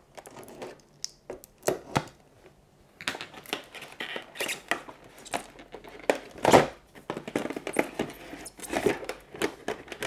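Cardboard box and inserts being handled and opened: a few scattered taps at first, then from about three seconds in, continuous rustling, sliding and clicking of cardboard against cardboard, with one louder knock a little past the middle.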